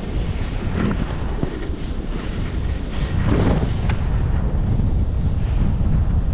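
Strong wind buffeting an action camera's microphone, a loud low rumble that grows a little louder about halfway through, with swishes of skis sliding through snow about a second in and again around three and a half seconds in.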